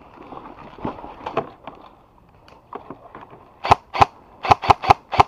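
Airsoft gun firing a quick string of single shots: about six sharp cracks in a second and a half near the end, after a few faint knocks.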